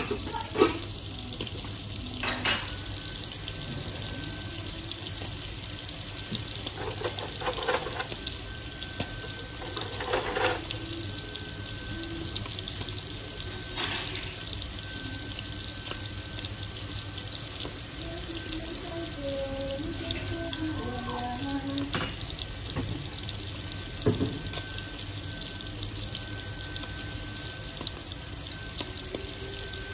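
Kitchen tap running steadily into the sink, with a few scattered knocks, the sharpest about three-quarters of the way through.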